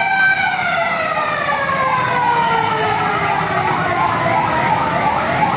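Fire truck sirens: an electronic siren yelping in quick rising sweeps, a little over two a second, over a long steady siren tone that about half a second in begins sliding slowly down in pitch, like a siren winding down. A low engine rumble lies underneath.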